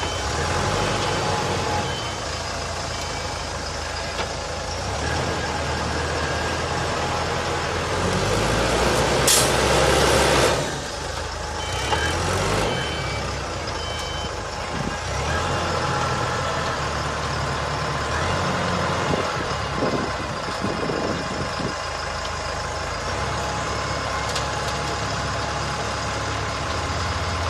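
Self-loading concrete mixer truck's engine running steadily, with short repeated reversing beeps near the start and again a little before halfway. About a third of the way in comes a loud hiss lasting about two seconds.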